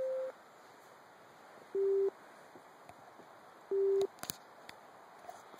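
Three short electronic beeps, each about a third of a second long and of one steady pitch. The first is higher, and the next two are lower, about two seconds apart. A couple of sharp clicks follow just after the last beep.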